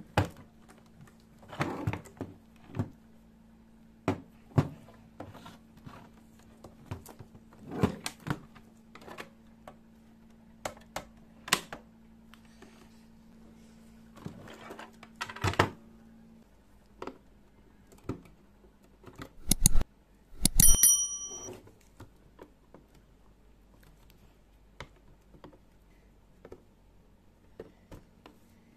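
Handling noise from the plastic housing of a Sunca VHS video cassette rewinder: irregular clicks, taps and knocks as the unit is turned over, set down and worked on. About twenty seconds in come two loud knocks, the second with a brief metallic ring.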